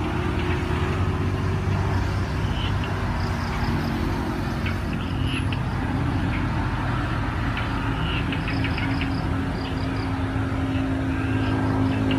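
A steady low engine drone, like a motor vehicle running nearby, with a few bursts of short high rapid chirps over it.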